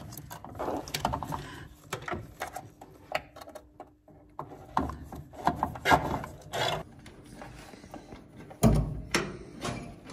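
Irregular clicks, small rattles and rustles of a wiring harness and its plastic parts bag being handled and unwrapped, with short pauses between.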